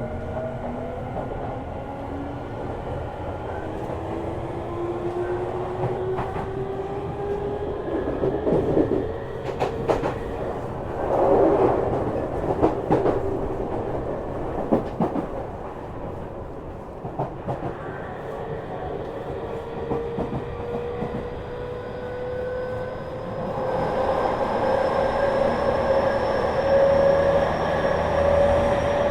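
Tokyu 5000 series train running under power, its Hitachi IGBT-VVVF inverter and traction motors giving several whining tones that rise slowly in pitch as it gathers speed. A run of sharp wheel clacks over the rails comes in the middle, and the running noise grows louder near the end.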